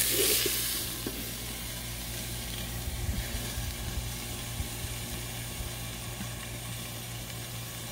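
Tri-tip steaks sizzling in ghee on a hot Blackstone griddle. The sizzle is loud at first, then drops to a steady, quieter hiss about a second in, as a stainless melting dome is set over the steaks.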